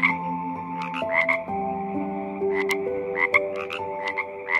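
Frog croaking, short calls in little groups of two or three about once a second.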